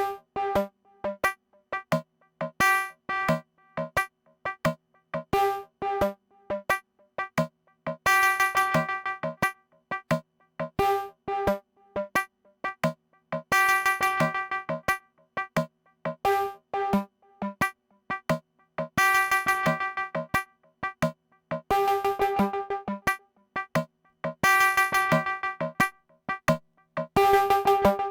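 Eurorack modular synthesizer patch: an FM oscillator sequenced through envelope-driven VCAs into delay and spring reverb, playing a sequence of short bell-like tones. Every few seconds a louder, longer cluster of notes rings out.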